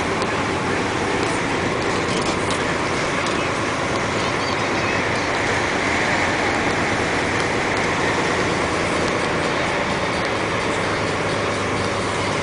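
Dump truck running steadily along a paved road, with engine and tyre noise heard from the cab.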